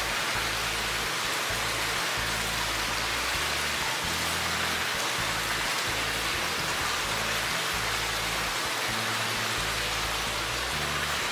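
Steady rush of water from a small waterfall spilling into a pool, with a soft background music bass line underneath.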